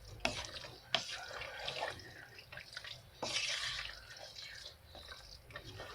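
Spoon stirring wet pasta and vegetables in a pressure cooker pot: soft wet squelching, with a few sharp knocks of the spoon against the pot, the loudest just after the start, at about one second and a little after three seconds.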